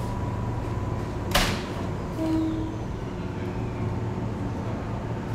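Electric commuter train standing at the platform with a steady low hum. A short, sharp hiss comes a little over a second in, and a brief low beep about two seconds in.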